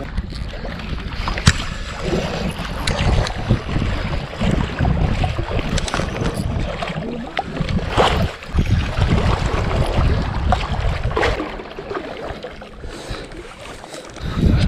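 Wind rumbling on the microphone and water sloshing, with a few sharp knocks and clicks.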